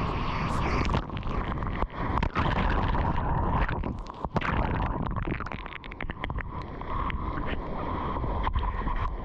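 Water rushing and wind buffeting the microphone while riding a wave, broken by brief knocks and short dropouts.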